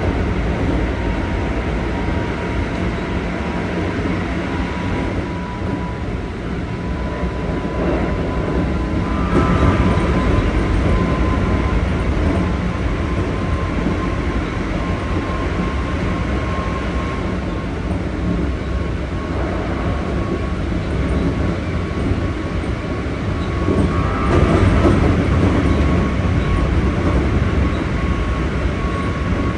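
Keikyu 1500 series electric train running at speed, heard inside the passenger car: a steady rumble of wheels on rail with a faint steady whine, swelling louder about ten seconds in and again near the end.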